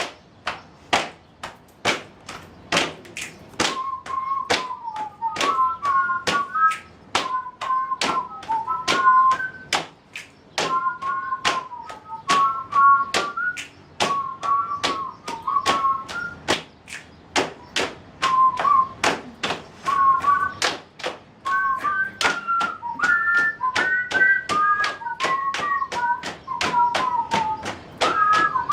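Body percussion: hand claps and slaps on a steady beat, about two a second. About four seconds in, a whistled tune joins it, in short phrases.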